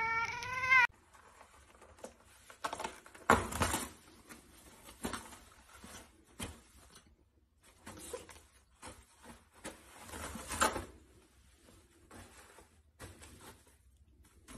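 A cat's meow rising slightly in pitch, cut off just under a second in. Then irregular bursts of paper rustling and crinkling as a cat paws at and pulls down a roll of toilet paper.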